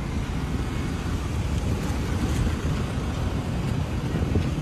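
Wind buffeting a phone microphone beside a street with cars driving past: a steady, uneven low rumble.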